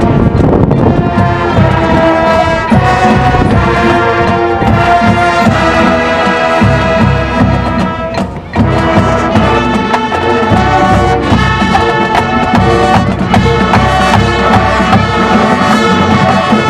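High school marching band playing loudly: brass chords held over drums and percussion, with a short break about halfway through before the band comes back in.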